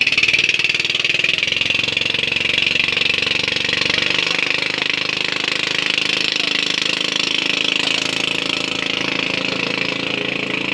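Small engine running steadily and loud, with a rapid even beat.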